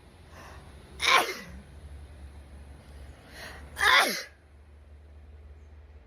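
A woman sneezing twice, about three seconds apart. Each loud sneeze comes after a short breath in and drops in pitch at the end.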